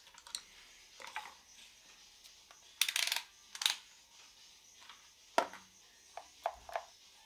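Scattered small clicks and clatters of multimeter probe leads and wires being handled against a metal electrical box, with a denser rattle about three seconds in and a quick run of taps near the end.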